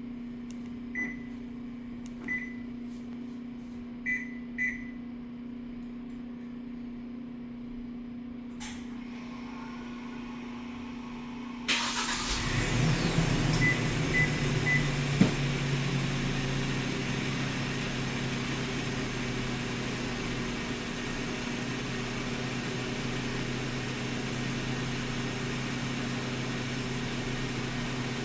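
Light cargo truck started with a remote-start alarm system: four short electronic beeps and a click, then about twelve seconds in the engine cranks briefly, catches with three quick beeps, and settles into a steady idle.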